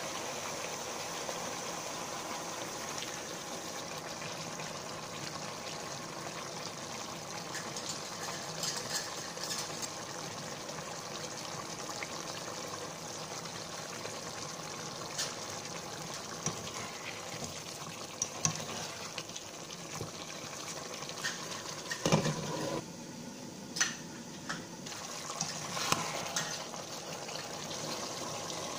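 Chicken pieces boiling in water in a frying pan, a steady bubbling hiss. Several short clinks and scrapes of a metal spoon on the pan come through it, the loudest near the end.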